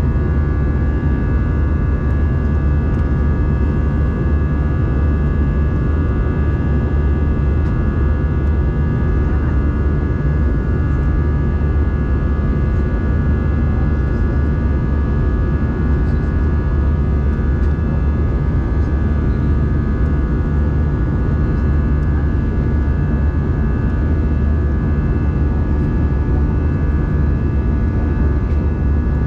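Airbus A320 cabin noise during the climb after takeoff: a steady, deep rumble of the jet engines and airflow, with several steady whining fan tones above it.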